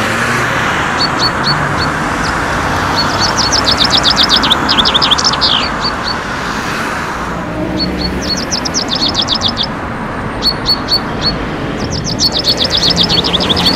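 A songbird sings the same short phrase three times: a few separate notes, then a fast trill ending in a falling flourish. Under it runs the noise of street traffic, which eases about halfway through.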